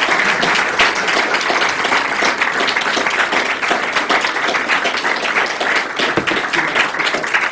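Audience applauding steadily: many hands clapping together in a dense patter.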